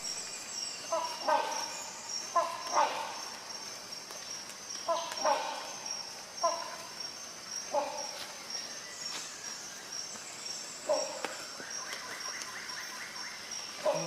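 Rhinoceros hornbill giving short, repeated calls, about eight in all, some in quick pairs, over a steady high-pitched insect drone.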